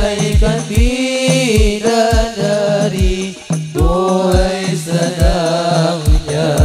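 Hadrah ensemble: male voices singing a slow, drawn-out melody over a steady beat of rebana frame drums, about two strokes a second, heard loud through a PA system.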